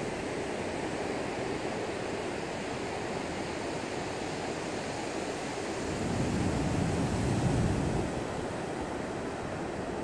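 Rough ocean surf breaking on a sandy beach: a steady rush of waves, which swells into a louder low rumble for about two seconds some six seconds in.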